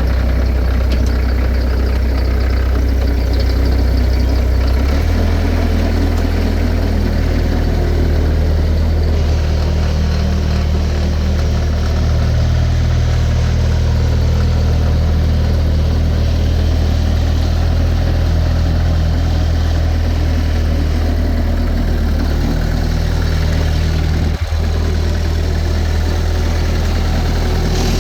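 Bobcat 763 G skid steer's diesel engine running steadily just after a start. Its speed steps up about five seconds in and drops back a few seconds before the end, with a brief click a little later.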